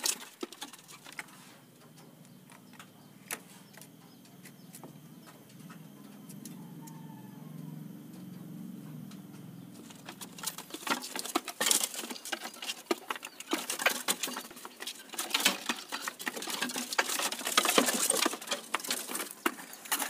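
White-breasted waterhen chicks pecking at feed in a wire cage: light, irregular clicks and taps. The taps are sparse over a faint low hum at first and come thick and fast from about halfway.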